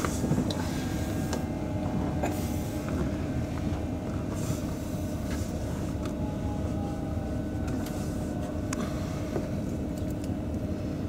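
Steady electrical hum with a held tone inside a standing Southeastern Class 395 Javelin electric multiple unit, with a few faint clicks.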